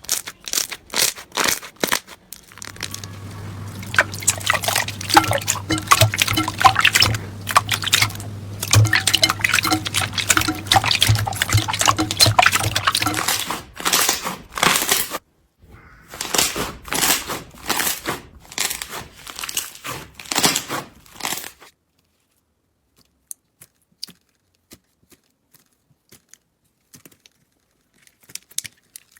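Slime being squeezed and stretched by hand, making rapid wet crackling and popping clicks, with a low steady hum under the first half. The clicking stops about three-quarters of the way through, leaving only a few faint ticks.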